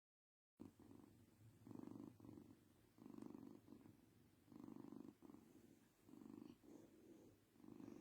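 A domestic cat purring, starting about half a second in and swelling and easing about every second and a half as it breathes in and out.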